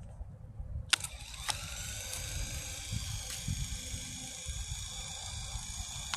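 Small TSRC drone's electric motors starting with a click about a second in, rising briefly in pitch, then running in a steady high whine of several tones over a low rumble.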